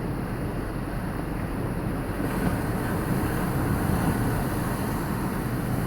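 Ocean surf rushing and breaking, with wind buffeting the phone's microphone. The noise swells slightly and brightens about two seconds in.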